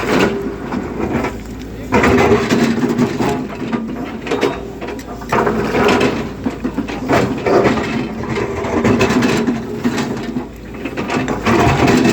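Excavator's diesel engine running steadily while the machine works, with loud, irregular scraping and clattering over it from about two seconds in.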